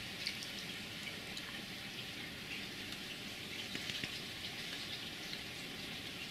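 Steady low hiss of background noise with faint, scattered light ticks and crackles.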